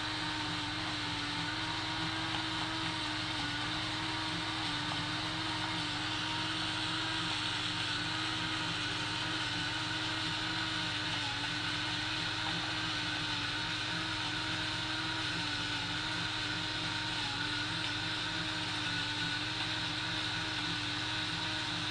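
Electric salt grinder running steadily: its small motor hums at an even pitch under a grinding hiss as it grinds salt crystals.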